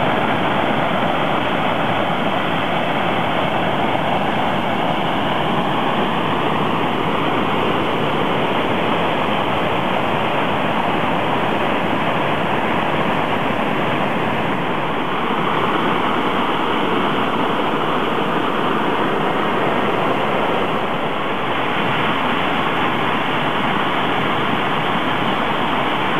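A swollen mountain stream in flood after heavy rain, its muddy water rushing loudly and steadily down a steep channel.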